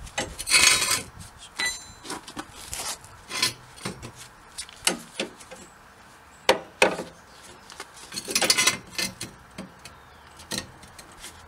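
Irregular metal clicks and knocks with a couple of short scrapes, as a jack and axle stand are worked under a car to raise and support it.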